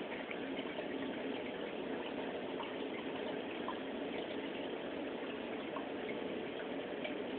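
Steady bubbling and trickling of a saltwater aquarium's circulating water, with small bubble pops scattered through it.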